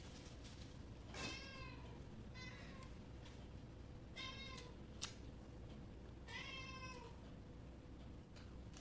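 A domestic cat meowing four times, short calls about a second and a half to two seconds apart. A single sharp click sounds between the third and fourth meow.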